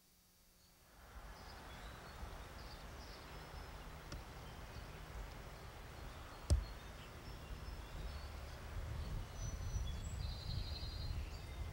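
Outdoor ambience from an early-1990s camcorder microphone: a low rumble with a faint hiss, growing louder toward the end, with faint bird chirps near the end. A single sharp knock about six and a half seconds in is the loudest sound.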